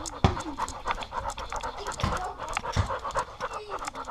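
Dog panting rapidly and evenly right at a collar-mounted camera, with a few dull knocks of the camera against the dog.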